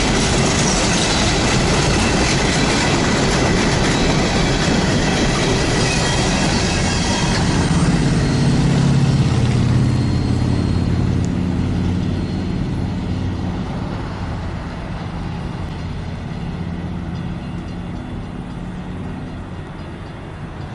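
Norfolk Southern coal train's hopper cars rolling past, steel wheels on the rails. The last car goes by about halfway through, and the rolling noise then fades as the end of the train recedes.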